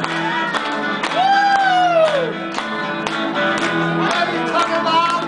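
Two electric guitars played live, a cream solid-body and a red hollow-body, with long lead notes bending and sliding in pitch over a steady rhythm part.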